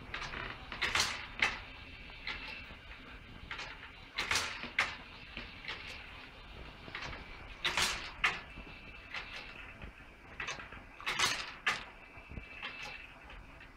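Scratchbuilt Newcomen atmospheric steam engine running through its cycle about every three and a half seconds. Each stroke brings a pair of sharp, noisy clacks about half a second apart, with lighter clicks in between and a faint steady high tone underneath.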